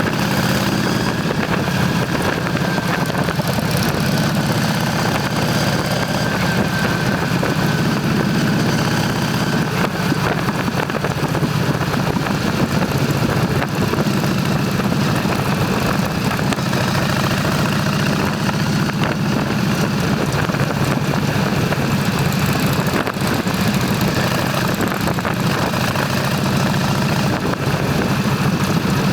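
Motorcycle engine running steadily, a constant low hum with no clear revving.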